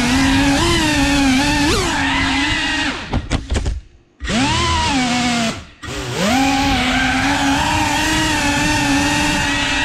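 FPV quadcopter's brushless motors whining, the pitch swooping up and down with the throttle. Twice around the middle the throttle is chopped and the sound almost drops out, then spools back up with a rising whine.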